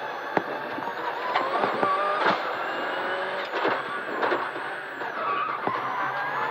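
Rally car engine heard from inside the cabin, revving up and rising in pitch several times as it accelerates, with a few sharp cracks along the way.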